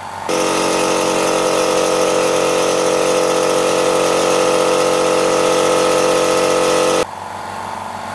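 A little 2-horsepower direct-drive air compressor running loudly with a steady hum. It cuts in abruptly just after the start and cuts off about seven seconds in. After that the much quieter three-pump Hush 100 compressor is heard running.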